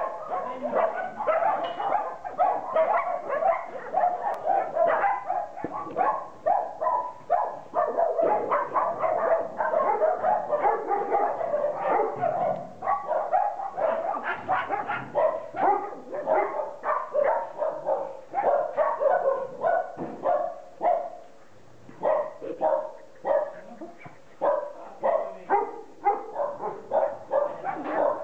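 Many dogs barking together, the barks overlapping almost without a break, with a short lull about twenty seconds in.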